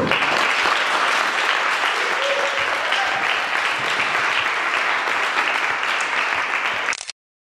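Small audience applauding, steady clapping that cuts off suddenly about seven seconds in.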